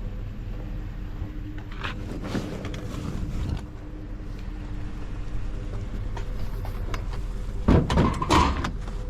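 A vehicle running with steady engine and road hum, with some rattling about two to three seconds in and a louder clatter near the end.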